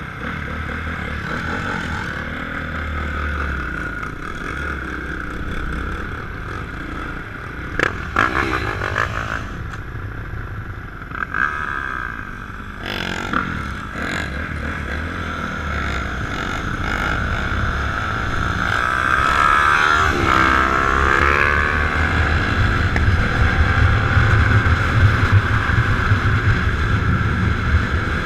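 Dirt bike engines running, with revving that rises and falls in pitch about two-thirds of the way through and a few sharp knocks earlier; the engines grow louder toward the end.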